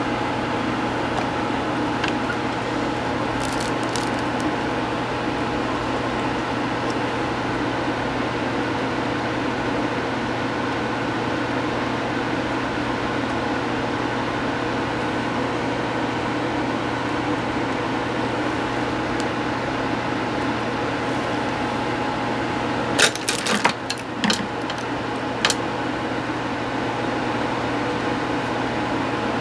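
A steady mechanical hum with a few faint ticks, broken about three-quarters of the way through by a quick cluster of sharp clicks.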